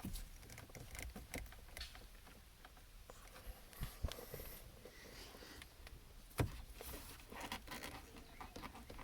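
Scattered light clicks, taps and rattles of hands working loose plastic steering-column trim and the wiper switch, with a sharper knock about six and a half seconds in.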